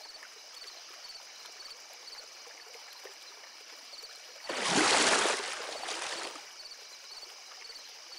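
A fishing net cast into a pond lands on the water with a splash about halfway through, a burst of water noise that fades within about two seconds. Faint, evenly repeated high chirps of a night ambience sound before and after.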